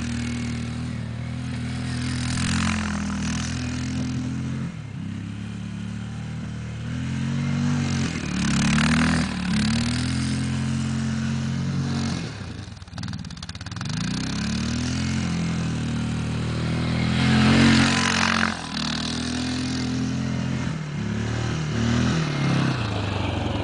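Quad (ATV) engine revving up and down again and again as it drives through snow, briefly dropping away about halfway through. Three bursts of rushing noise rise over the engine, the loudest in the second half.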